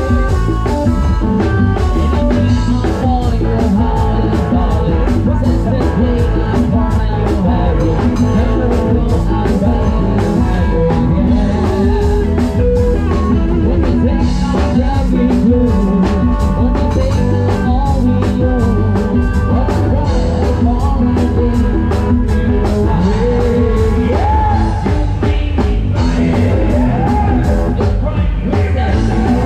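Live band music with electric guitar, keyboards and drums playing a fast steady beat, pumped through a rot hae sound system of Thai Audio SR18 bass cabinets and TD-112 midrange cabinets, heavy in the bass.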